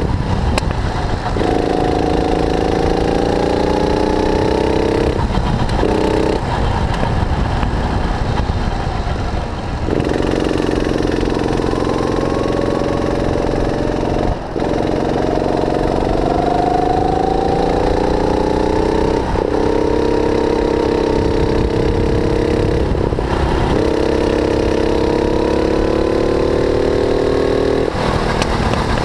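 270cc, 9 hp single-cylinder four-stroke kart engine heard onboard at speed. It rises steadily in pitch as the kart accelerates down each straight and drops away each time the driver lifts off for a corner, about six times in all, over a constant low rumble.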